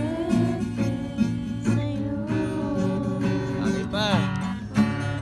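Acoustic guitar being strummed, chords ringing over a regular strumming rhythm.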